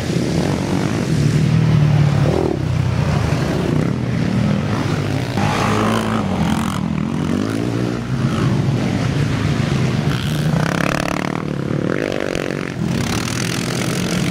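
Racing quad engines revving hard, their pitch repeatedly rising and falling as the riders work the throttle and shift through the course.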